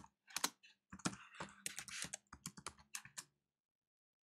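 Typing on a computer keyboard: a quick, uneven run of about a dozen keystrokes lasting some three seconds as a short command is typed in.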